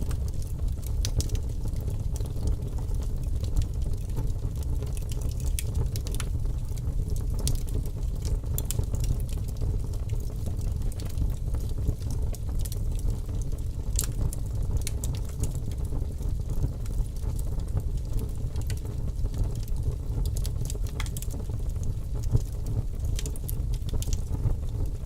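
Fireplace fire burning with a steady low rumble and frequent sharp crackles and pops scattered throughout.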